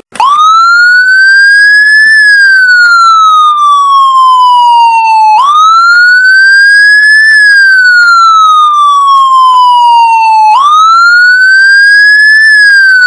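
A siren wailing loudly, starting suddenly: its pitch climbs for about two seconds, then sinks slowly for about three, and the cycle repeats about every five seconds.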